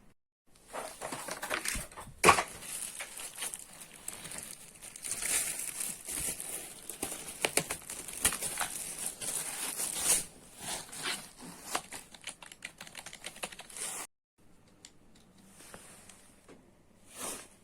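Packaging of a new keyboard being opened: plastic and paper crinkling and tearing, with many sharp clicks and knocks. It goes quiet about 14 seconds in, with only a few faint rustles after.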